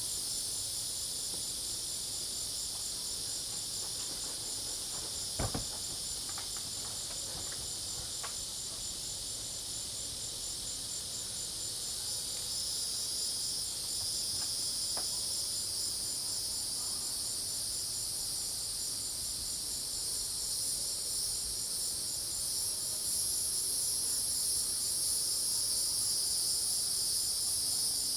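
Night chorus of crickets and other insects: a steady, high-pitched, rapidly pulsing trill that swells slightly toward the end. A single brief click sounds about five seconds in.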